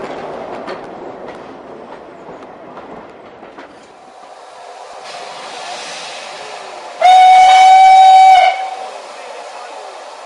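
Railway coaches clattering past over rail joints, fading away. Then a steam hiss and a single steady blast, about a second and a half long, on the whistle of the Somerset & Dorset Joint Railway 7F 2-8-0 steam locomotive No. 88.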